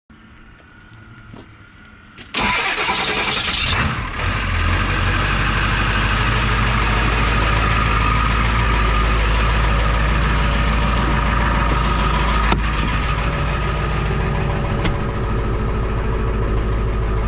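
New Holland LS140 skid steer's diesel engine cold-started after sitting for over two months: a little over two seconds in it cranks briefly, catches, and settles into a steady idle. A single sharp click sounds about halfway through.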